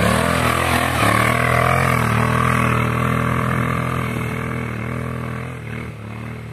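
Suzuki V-Strom adventure motorcycle held on steady throttle as it pulls through deep loose sand, passing close and then riding away. Its engine note fades gradually as it goes.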